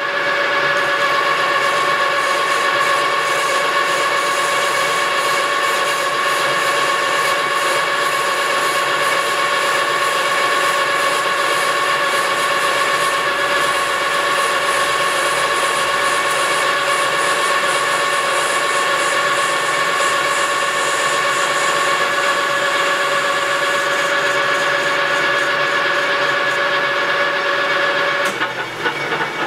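Metal lathe taking a facing cut on an aluminum part: a loud, steady whine of several tones over the machine's running noise. The whine stops near the end.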